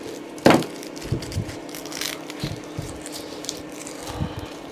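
Handling noises from an old tape-wrapped steering wheel on a wooden workbench as layers of tape are worked off the rim. There is one sharp, loud rip or knock about half a second in, then scattered light knocks and crinkles over a steady low hum.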